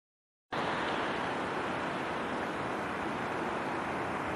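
Boeing 747-400 freighter's four jet engines running with a steady roar as it moves along the runway. The sound cuts in suddenly about half a second in, after dead silence.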